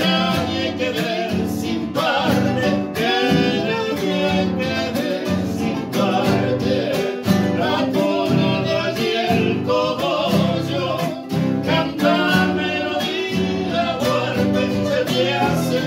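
A tonada played live on several acoustic guitars strummed and plucked together, with sung vocals over them.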